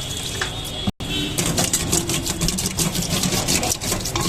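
Rapid rhythmic scraping, several strokes a second, over steady background noise; the sound drops out briefly about a second in, and the scraping starts after it.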